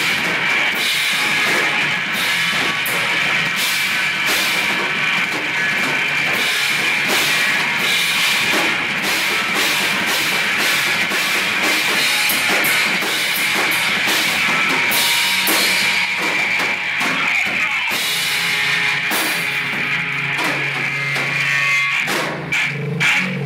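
Live rock band playing loud: electric guitar over a pounding drum kit with steady crashing cymbals. Near the end the drums drop out, leaving held electric guitar notes ringing.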